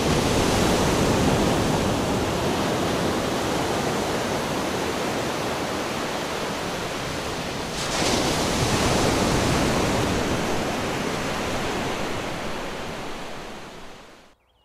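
Ocean surf: a steady rush of breaking waves that swells again about eight seconds in and fades out near the end.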